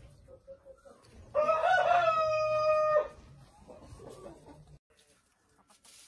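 Wyandotte rooster crowing once, about a second in: one loud crow of under two seconds that rises at the start, holds one pitch and stops sharply. Softer hen clucking follows.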